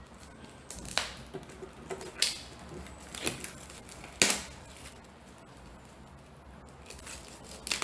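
Handling a book and its packaging: a handful of separate sharp taps, clicks and rustles, the loudest about four seconds in.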